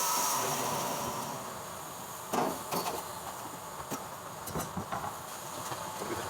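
A machine's steady high whine dies away over the first second or so, followed by scattered, irregular knocks and clatters, like wood or metal parts being handled.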